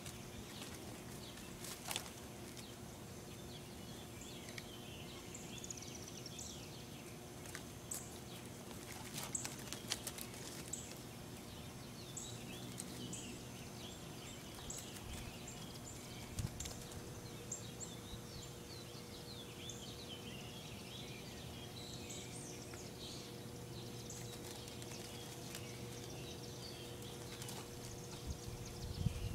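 Many small birds chirping, with a steady low hum under them and a few short knocks and rustles.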